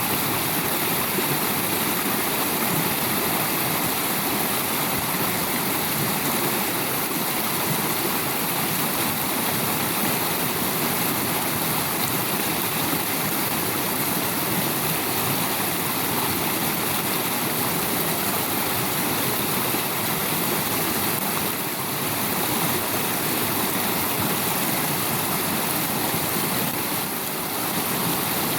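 Strong river current rushing over a shallow rocky bed, a steady even wash of water noise that does not let up.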